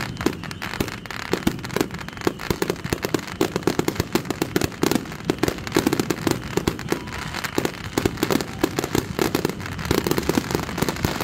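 Consumer fireworks finale: many aerial cakes firing at once, a rapid, continuous barrage of launch thumps, bangs and crackling bursts, several reports every second with no let-up.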